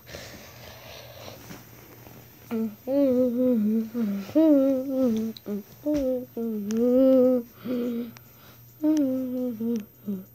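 A person humming a wavering tune in short phrases, starting about two and a half seconds in.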